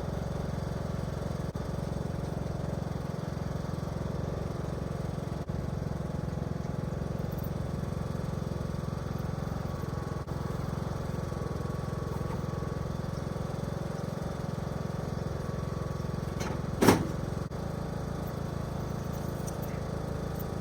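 Riding lawn mower engine running steadily under way. A single sharp clank sounds near the end.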